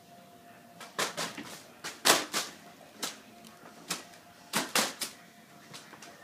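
Foil birthday balloon being tossed about by a ceiling fan's draft, giving a dozen or so irregular, sharp crinkling slaps over a faint steady hum.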